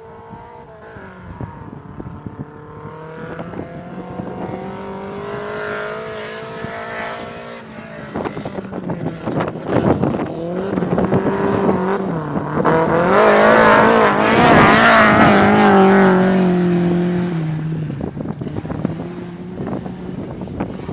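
Rally car engine accelerating hard along a gravel stage, its pitch climbing and then dropping at each gear change. It is loudest about two-thirds of the way through as it passes, then fades, with sharp clicks scattered through the middle.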